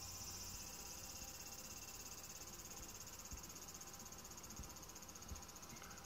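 Cicadas singing: a steady, high-pitched buzz that dims a little over the last few seconds.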